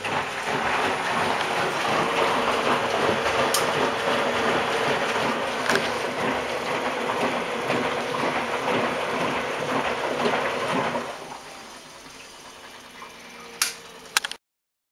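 Miele W 720 washing machine filling with water at the start of a wash cycle: a loud, steady rush of incoming water that starts abruptly and stops about eleven seconds in. Two sharp clicks near the end.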